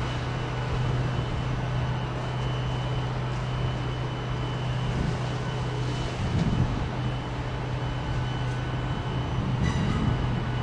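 GWR Class 158 diesel multiple unit running slowly on the approach, its diesel engines giving a steady low drone, with a few sharp clicks near the end.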